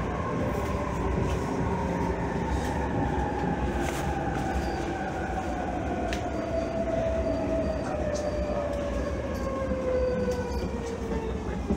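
E531 series electric train's traction motors whining in a tone that falls steadily in pitch as the train slows, over a steady running rumble with a few sharp clicks.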